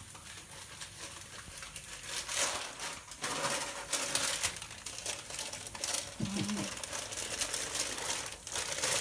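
Paper wrapping being handled and unfolded, rustling and crinkling in irregular bursts.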